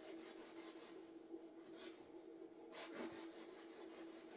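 Near silence: room tone with a faint steady hum, and two faint rustles about two and three seconds in.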